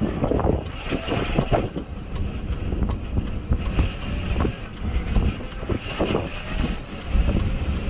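Vehicle cabin noise while driving: a steady low road and engine rumble with wind buffeting, and a faint steady tone underneath.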